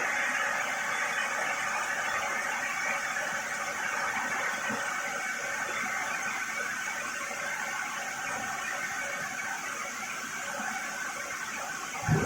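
Parallel vertical band sawmill running steadily, a continuous mechanical hiss with a faint steady whine from the machinery. A single short knock comes near the end.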